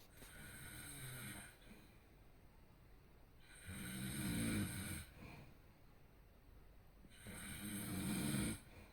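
A person snoring in their sleep: three snores about three and a half seconds apart, each a low rattle with a breathy hiss over it, the first one fainter than the other two.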